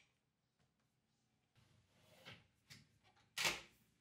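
A plywood drawer sliding along its undermount slide runners into the cabinet, a short scrape about two seconds in followed by a small click, then shutting with a sharp knock near the end.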